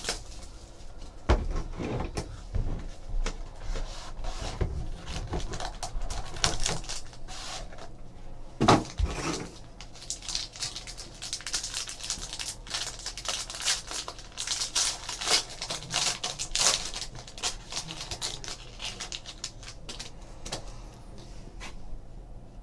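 Hands opening a cardboard trading-card hobby box and tearing open a foil card pack: scattered knocks and taps, a heavier thump about nine seconds in, then a stretch of foil wrapper crinkling. Near the end, softer handling of the card stack.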